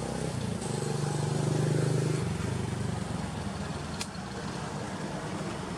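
A motor vehicle's engine running, loudest for the first two seconds and then settling to a quieter steady hum. A single sharp click comes about four seconds in.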